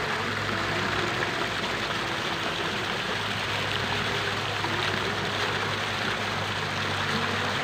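Fountain water jets spraying and splashing steadily into a shallow basin: a continuous, even rush of falling water.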